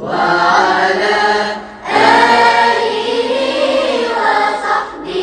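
Music of several voices singing together like a choir, with held notes. It starts abruptly and breaks off briefly just before two seconds in.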